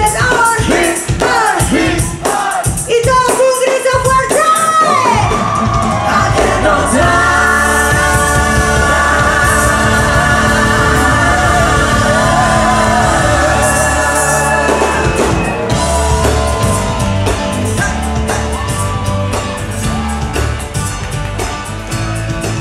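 Pop-rock song with a lead singer over a steady beat, with long held notes through the middle.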